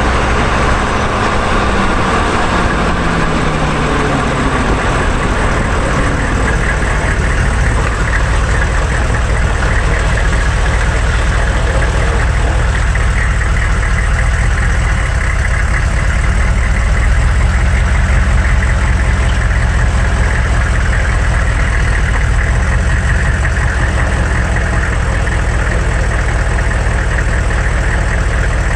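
Heard from under the truck, a 1999 GMC 3500's 6.5 L turbo diesel and driveline wind down in pitch during the first few seconds as the truck slows from road speed. The engine then settles to a steady, clattering diesel idle as the truck rolls onto gravel and stops.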